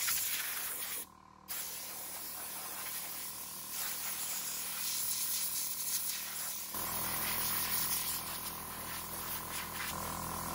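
Water hissing from a garden hose spray nozzle onto the cement footing and stones. The spray cuts out briefly about a second in, then runs on.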